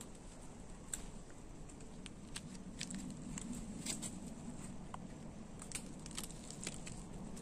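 Faint scattered crackling and rustling of dry bamboo leaf litter and a plastic bag being handled while mushrooms are picked by hand, with a light steady hiss beneath.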